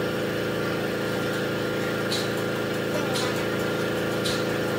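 A motor running steadily at an even pitch, with soft rubbing strokes about once a second from about two seconds in.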